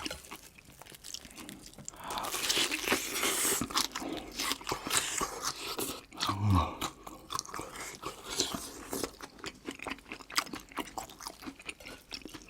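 Close-miked chewing and crunching of a crispy breaded pork cutlet, a dense run of irregular wet clicks and crunches that is loudest a couple of seconds in. A short low "mm" hum comes about halfway through.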